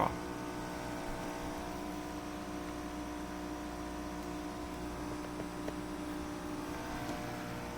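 Residential heat pump running steadily: a constant hum with several steady tones.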